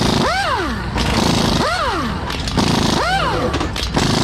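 Pneumatic impact wrench loosening cylinder-head fasteners in short trigger pulls: four times it spins up quickly to a whine and winds down as the trigger is released.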